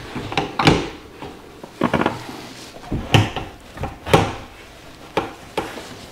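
A fixed-frame projector screen knocking and clunking against its wall brackets as it is pushed and tapped into place to seat it. The knocks come irregularly, several a few seconds apart, some with a short ring.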